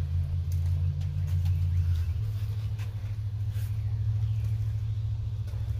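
A low, steady mechanical hum that shifts in pitch about two seconds in, with a few faint clicks.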